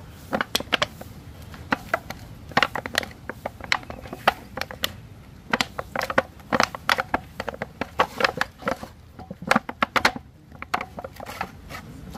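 Hands kneading and pressing flour dough for dumplings: irregular clusters of short, sharp squishes and slaps.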